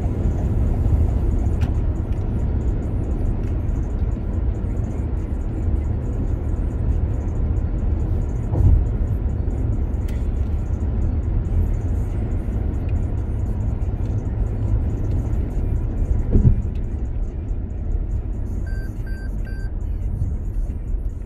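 Steady low road and tyre rumble inside a car cruising on a highway, with two brief thumps about 9 and 16 seconds in. Near the end come three short, high beeps.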